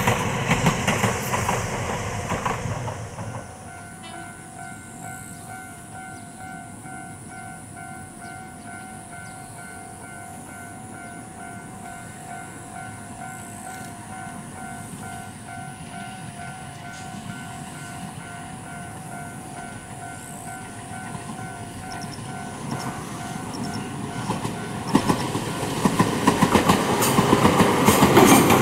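Ohmi Railway 800-series electric trains: one passing and fading away in the first few seconds, then a quieter stretch with a steady pulsing electronic tone. Near the end a second train comes in and passes, its wheels clicking over the rail joints.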